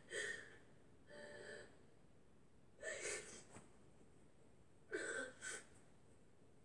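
A woman sobbing, with short gasping breaths coming in four brief bursts, heard faintly through a television's speaker.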